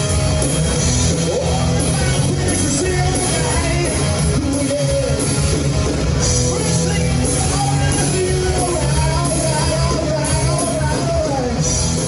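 Hard rock music with a singing voice over electric guitar, bass and drums, at a steady loud level.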